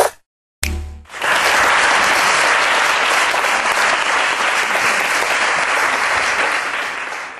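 Audience applauding steadily, starting about a second in and fading out near the end, after the act's music cuts off at the start.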